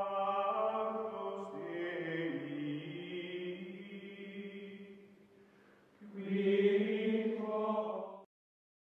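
Slow choral chanting, voices holding long chords. The chord shifts about two seconds in and fades, then a new chord swells in about six seconds in and cuts off abruptly near the end.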